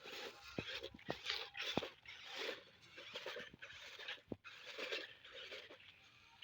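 Irregular crunching and rustling with scattered sharp clicks.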